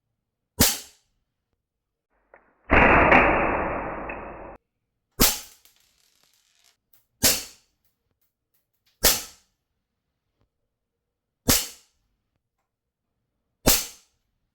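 CO2-powered metal Colt 1911 airgun firing six single shots, each a sharp crack, spaced about two seconds apart. About two seconds in, a roughly two-second rush of noise fades away between the first and second shots.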